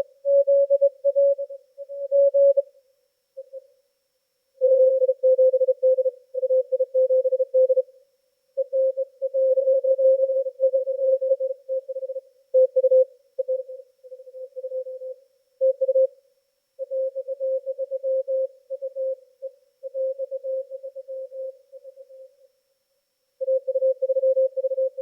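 Morse code (CW) signals from several amateur radio stations heard through an HF transceiver: a keyed mid-pitched tone in rapid dots and dashes. Some stations sit at slightly different pitches, and there is almost no background hiss in the short pauses between transmissions.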